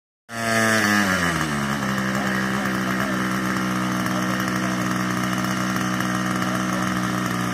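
Small engine of a radio-controlled flying lawnmower model running loud and steady. It starts out at high revs, drops in pitch over about a second, and then holds a lower, even speed.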